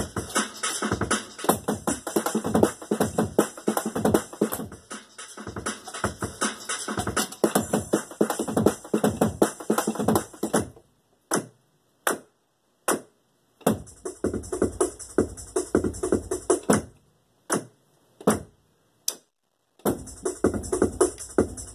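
Electronic drum kit played with sticks and heard through its amplifier: fast runs of drum hits, breaking off about halfway into a few single hits with silent pauses, then picking up twice more.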